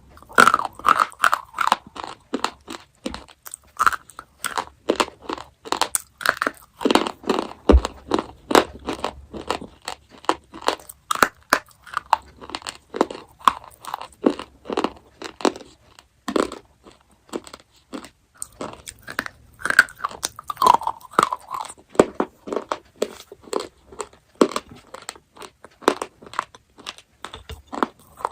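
Crunchy chocolate being bitten and chewed close to the microphone: a dense run of sharp, irregular crunches, several a second.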